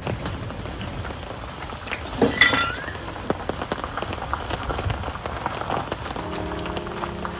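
Rain falling steadily, with many small drop impacts pattering, and a brief louder sound about two and a half seconds in. Soft piano music fades in near the end.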